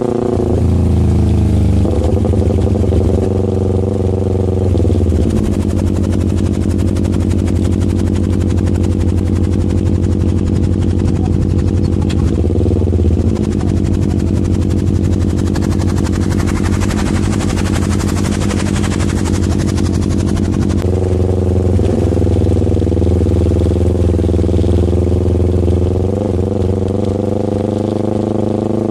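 Motorcycle engine running steadily at speed with wind rush, its note shifting in pitch a few times as the throttle and gears change.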